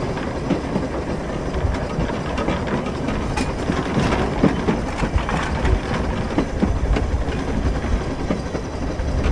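Narrow-gauge steam locomotive Welsh Pony and its train running, heard from the tender: a steady rumble and rattle of wheels on rails with scattered sharp clicks.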